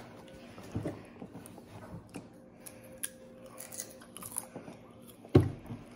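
Popcorn rustling and crackling as hands dig through a bowl of it and pop pieces into the mouth, a run of small scattered clicks. One loud thump about five seconds in.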